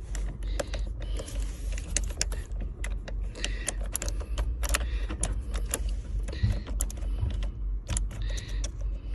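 Irregular small metallic clicks and rattles of a pick and an ignition lock cylinder being worked loose and drawn out of a steering column, over a steady low rumble.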